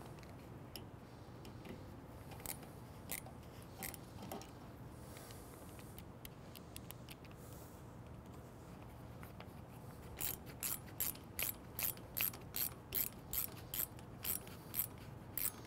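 Ratcheting screwdriver driving a screw into a plastic stop block, clicking faintly. There are a few scattered clicks and taps at first, then from about ten seconds in an even run of ratchet clicks, about three a second.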